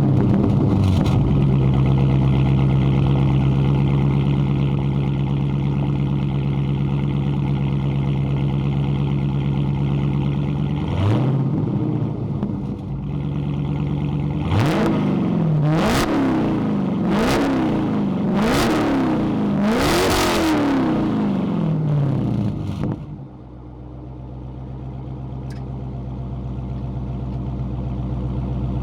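2018 Dodge Challenger T/A 392's 6.4-litre HEMI V8, with its mid mufflers and resonators deleted and Dynomax race bullets fitted, starts and runs at a steady fast idle. It gives one rev about a third of the way in, then five quick revs in a row, then settles to a lower, quieter idle.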